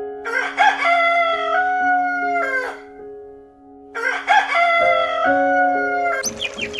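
Rooster crowing twice: two long crows, each rising, holding and falling away at the end, over soft background music.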